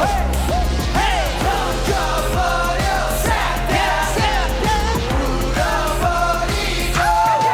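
K-pop song playing: sung vocal lines over a steady bass beat, ending on a long held note.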